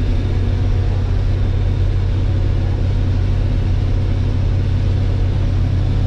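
Case IH 1660 combine running steadily while harvesting soybeans, a constant low drone of its diesel engine and threshing machinery heard from inside the cab.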